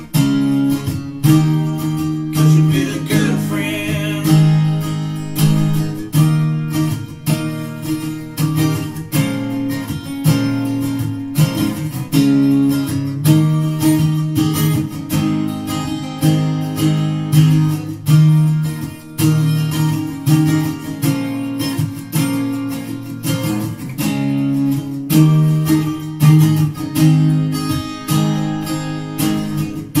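Acoustic guitar music, strummed and plucked in a steady rhythm, played back through a pair of PMC Prodigy 1 bookshelf speakers and picked up by a microphone in the room.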